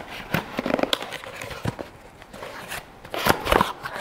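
A small cardboard box being handled and opened by hand: cardboard flaps scraping and rustling with sharp clicks, and louder tearing and scraping about three seconds in.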